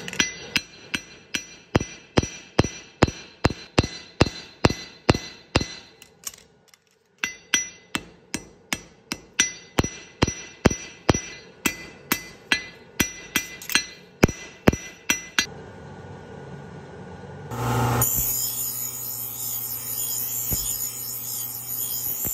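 Hand hammer forging a hot steel knife blade on an anvil: steady blows about three a second, each with a metallic ring, with a short pause partway through, then stopping. A few seconds later a bench grinder wheel starts grinding the steel blade, a steady bright hiss with a hum under it.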